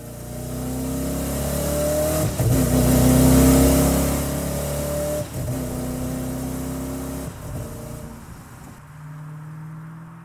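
A motor vehicle engine accelerating through the gears: its pitch climbs, drops back at each of two or three shifts, then settles lower and fades away near the end.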